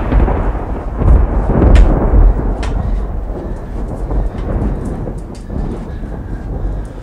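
A deep, rumbling comic fart sound effect that fades away over several seconds, with a few light footsteps on the stairs.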